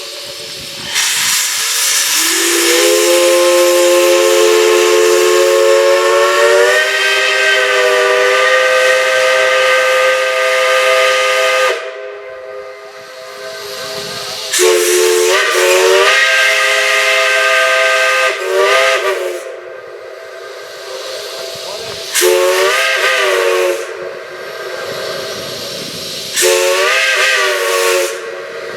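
A multi-chime steam whistle blowing several notes at once. A long blast rises in pitch as it opens up and is held for about ten seconds. It is followed by about five shorter blasts whose pitch bends as the valve is worked, with steam hissing between the blasts.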